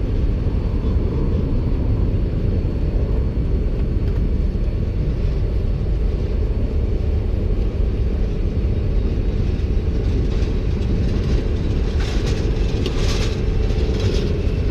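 Steady low engine rumble from the ground equipment, with a couple of seconds of rattling and scraping near the end as the hose fitting is handled.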